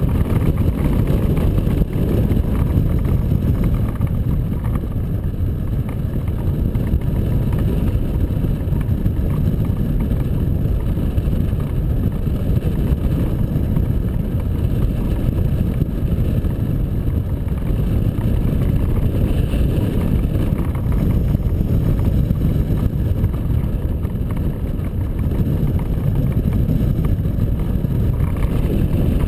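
Airflow buffeting the microphone of a wing-mounted camera on a hang glider in flight: a loud, steady, low wind rush.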